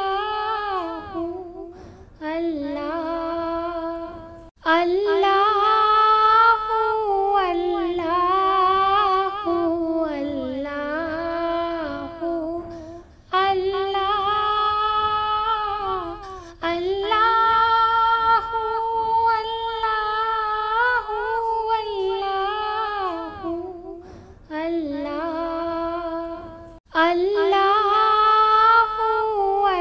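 Female voice singing a naat without instruments, in long wavering melodic phrases with short breaks between them.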